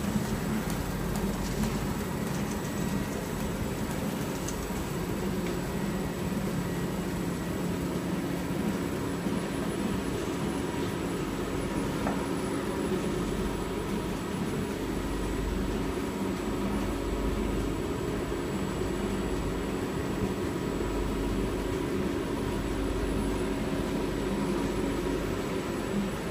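Roll-to-roll embossing machine for 3D lens and hologram PET film running steadily, its rollers turning as the film feeds through: a continuous mechanical drone with a low hum and a faint high whine.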